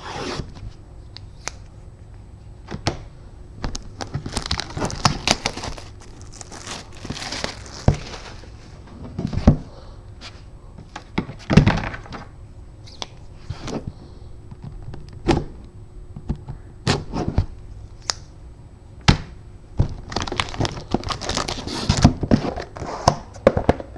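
A sealed trading-card box being opened by hand: plastic wrap crinkling and tearing in longer stretches, with scattered sharp clicks and knocks from the box and packs being handled.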